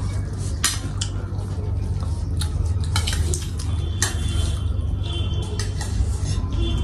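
Spoons and forks clinking and scraping against metal plates as several people eat noodles, in scattered light clicks over a steady low hum.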